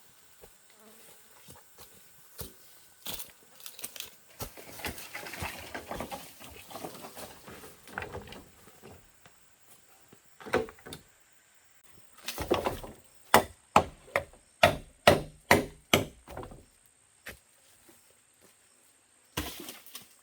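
Wood being chopped or struck with a hand tool: scattered knocks and handling noise, then a run of about seven sharp blows roughly half a second apart about two thirds of the way in, and one more blow near the end. A faint, steady high insect drone runs underneath.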